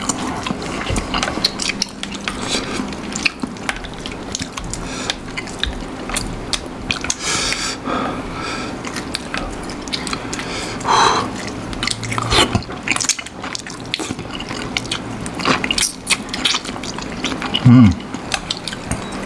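Close-miked eating sounds: chewing and slurping of noodles and prawns in spicy broth, with frequent small clicks of chopsticks. A brief vocal sound comes near the end.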